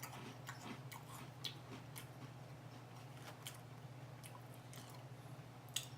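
Faint chewing of crunchy filled cracker pillows: irregular crisp crunches and clicks over a low steady hum.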